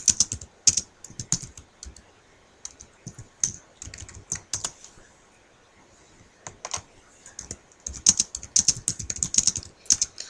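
Typing on a computer keyboard: quick runs of key clicks in irregular bursts, with short pauses around the middle.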